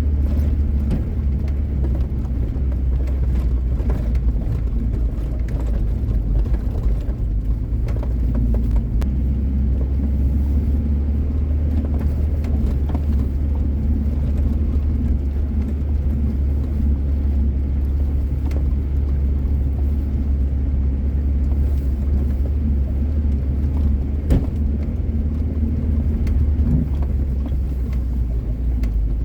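A car driving slowly along a snowy, rough mountain track, with a steady low rumble of engine and tyres and a few knocks from the jolting ride, the sharpest near the end.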